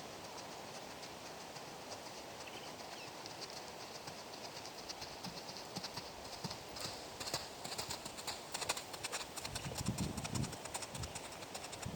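Horse's hooves clip-clopping at a walk, the footfalls growing louder and clearer in the second half, over a steady hiss of wind, with low rumbles of wind on the microphone near the end.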